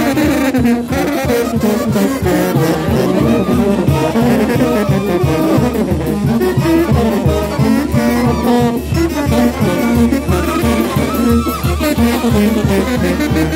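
Oaxacan brass band playing at full volume: trombones and trumpets carry the melody over a sousaphone bass line with a steady beat.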